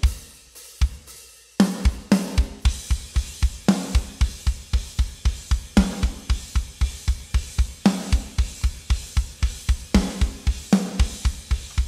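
Soloed rock drum kit playing back through a mix, its overhead and room microphones together: a few separate hits, then from about a second and a half in a fast, steady kick drum under snare hits about once a second and cymbal wash. The overheads are EQ'd to tame harsh cymbals and thin out the snare.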